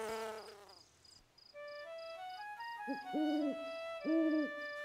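Owl hooting: a short hoot and a longer one starting about three seconds in, then another a moment later. Under it are a steady high chirping of crickets and a soft rising run of held notes, a cartoon night-time soundscape.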